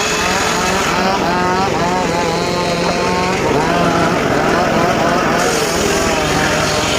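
Homemade bench circular saw running and cutting teak wood: a loud, steady machine and blade noise whose pitch wavers as the blade works through the cut.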